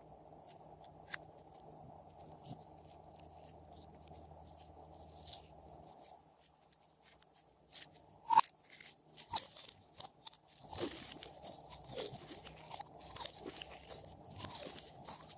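Glossy slime with clay and makeup mixed in, worked by hand. It is faint for the first six seconds, then from about eight seconds in gives a dense run of crunchy crackles and pops, the loudest one single sharp pop.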